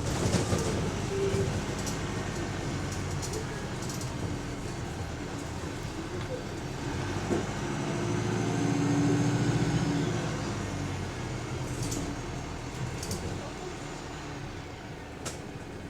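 Go-Ahead London bus WS104 heard from inside the saloon, its engine and running gear humming steadily. The noise swells to its loudest about eight to ten seconds in, then eases off, with a few short clicks or hisses near the end.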